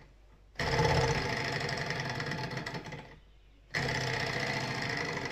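Model two-cylinder Stirling engine's pistons and linkage clattering rapidly as its flywheel spins. It starts abruptly, runs about two and a half seconds and dies away, then starts again near the end. It will not keep running, which the owner puts down to too little heat from its kitchen-oil burners.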